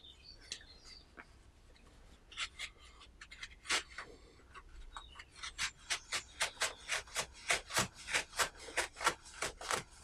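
Serrated multitool blade sawing through a knotted cotton t-shirt rag, each stroke a short rasp. A few slow strokes at first, then a steady back-and-forth of about three strokes a second through the second half as the blade cuts through.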